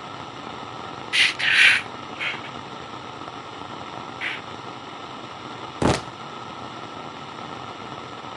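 Steady walkie-talkie static hiss, broken by a few short, harsher bursts of hiss in the first half and a single sharp click a little before the end.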